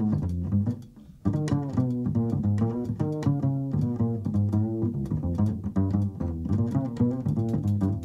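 Jazz double bass plucked in a fast run of notes, with light drums and cymbals behind, and a brief pause about a second in.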